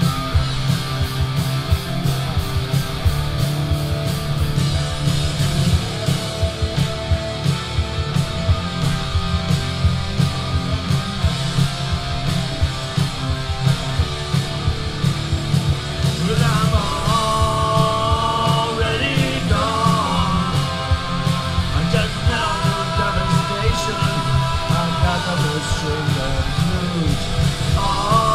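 A live rock band plays loudly: two electric guitars, bass guitar and drums, with regular drum hits. Singing comes in over the band about halfway through.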